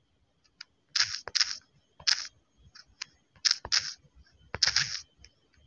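Fingers tapping on a smartphone's touchscreen keyboard while typing a hashtag: a string of irregular clicks and short soft hisses with pauses between them.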